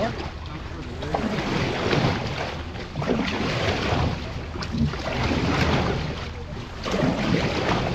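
Steering paddle pulled through the water beside an outrigger canoe's hull in repeated draw strokes to swing the boat around, each pull swishing and splashing, about every one and a half to two seconds.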